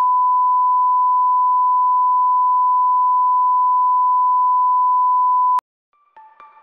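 Bars-and-tone test signal: a steady, pure, loud beep at a single pitch, played with TV colour bars, that cuts off suddenly with a click about five and a half seconds in. After a brief silence, quiet xylophone-like music notes begin near the end.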